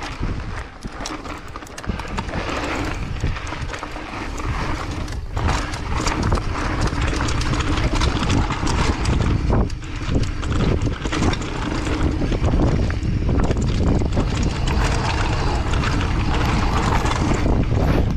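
Mountain bike riding fast down a dirt singletrack: tyres rolling over dirt and rocks, with constant rattling and clicking as the bike hits bumps, and wind rumbling on the microphone. It gets louder over the first few seconds as the bike picks up speed.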